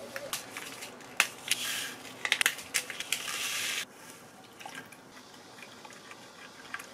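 A few sharp clicks and taps of glass and dishware. Then water is poured from a small glass measuring cup onto instant coffee in a dish for under a second and stops sharply. Afterwards there are only faint scrapes of a wooden spoon stirring to dissolve the coffee.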